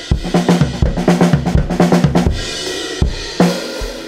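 Recorded band track playing back, led by a drum kit with a pitched low line beneath it. The kick drum runs through the FG-Stress compressor plug-in, its input driven up to about 9 dB of gain reduction.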